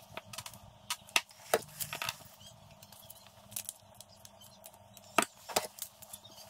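Two wooden blocks being handled on a workbench and clamped together with plastic one-handed Irwin Quick-Grip bar clamps for a glue-up: scattered sharp clicks and knocks from the clamp and the wood. A cluster of louder clicks comes between about one and two seconds in, and a couple more about five seconds in.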